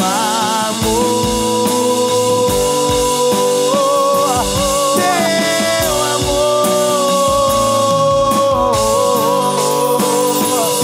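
Live band music with no sung words: a steady kick drum beat about twice a second under a long, wavering held lead melody.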